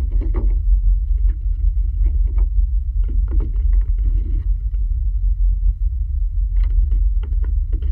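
Deep, steady rumble with irregular clusters of rattles and knocks over it, the sound of a house shaking as an alien craft hovers over it.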